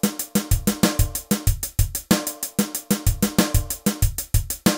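Funk drum-kit groove: even, fast hi-hat strokes over bass drum and snare hits in a steady beat.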